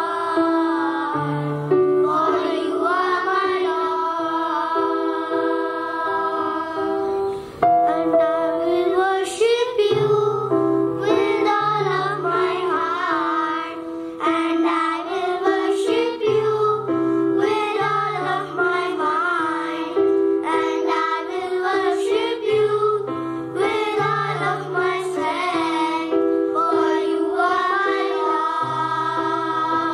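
Children's choir singing a song, with wavering sung voices over instrumental accompaniment that has held notes and a repeating bass line.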